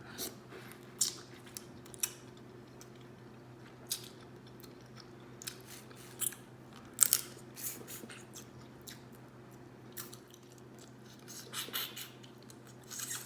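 Close-up eating sounds of someone working through Alaskan crab legs: irregular sharp clicks and crunches of chewing and mouth smacking, bunched around the middle and near the end, over a faint steady hum.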